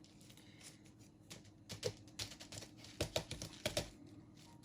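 Faint clicks, taps and rustles of hands working potting soil into a plant pot and handling the pot. The clicks come in quick clusters from about a second and a half in.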